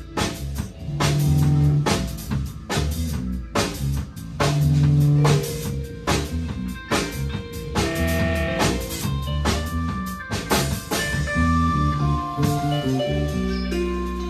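A live band playing instrumental music with electric guitar, bass guitar and drum kit, the drums striking steadily. The drumming thins out a little after ten seconds in, and a long low bass note is held near the end.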